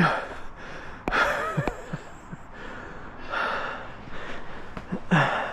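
Heavy, labored breathing of a person climbing a steep dune of loose sand: about four hard breaths, some with a short voiced grunt, from the effort of a climb where each step slides back.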